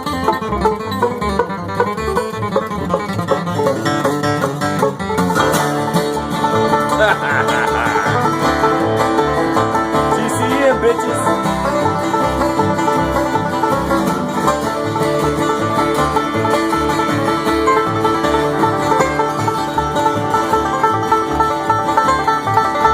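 Bluegrass band playing live, with a banjo prominent among the plucked strings; the sound fills out about five seconds in.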